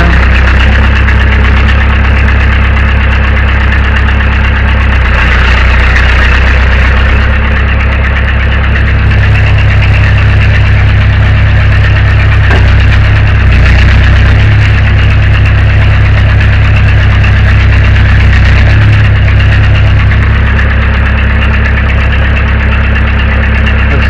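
Case 580 backhoe's engine running steadily while its hydraulics work the rebuilt outrigger ram. The low engine note gets louder for about ten seconds in the middle, then settles back.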